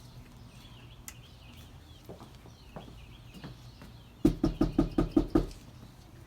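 A quick run of about eight knocks on a door, about four seconds in, with faint birdsong behind.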